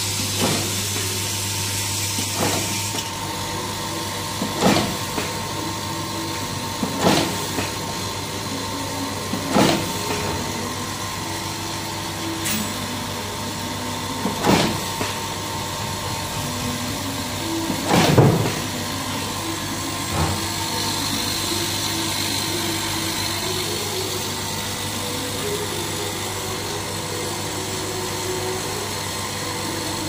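Automatic ferrule crimping machine with a vibratory bowl feeder running: a steady low hum from the feeder, with a sharp crimping stroke every two to three seconds, about eight in all, the loudest about eighteen seconds in. A hiss cuts off about three seconds in, and the strokes stop after about twenty seconds while the hum goes on.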